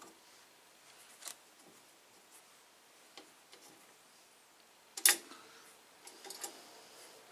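Scattered light clicks and taps of an aluminium drum-lug bracket and its bolt being handled against a drum shell, with one sharper, louder click about five seconds in.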